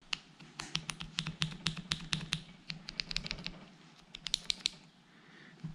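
Spinning reel handle being worked by hand: a fast, irregular run of sharp, light clicks that thins out about four and a half seconds in.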